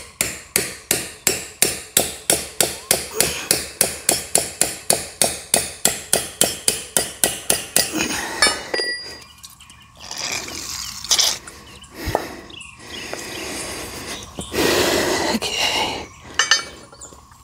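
Hammer tapping a pin punch against the rusty spool of a John Deere 3038e rock shaft valve: a run of about thirty quick, even metal strikes, roughly four a second, stopping about eight seconds in. Softer, irregular handling noises follow.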